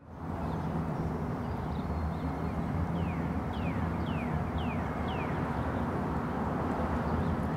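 Steady town-street ambience, a low hum of traffic. Midway a bird calls five quick falling chirps about half a second apart.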